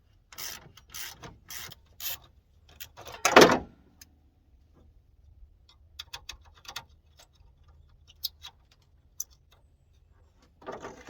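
Hand wrench work on a bolt in an old pickup's engine bay: a few short rasping ratchet strokes about twice a second, a loud metallic clunk a little over three seconds in, then scattered light clicks and taps.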